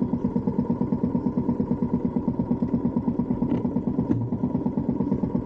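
Small motorcycle engine running steadily at low revs, with an even pulsing beat of about a dozen beats a second.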